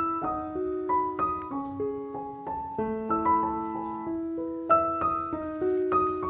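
Background piano music: a gentle melody of sustained notes struck in a steady, unhurried rhythm.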